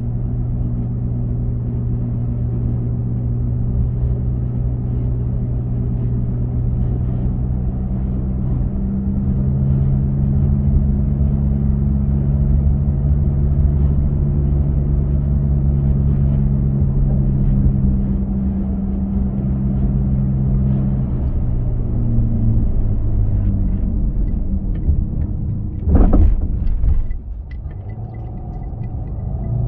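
A car driving on a paved road: steady low engine hum and tyre rumble, with the engine note shifting a couple of times. A brief louder burst comes about 26 seconds in, and after that the sound is quieter.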